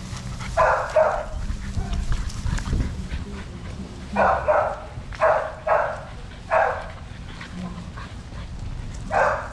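American Bully puppies barking in short, sharp barks during play: about six barks, one near the start, four in quick succession in the middle and one at the end.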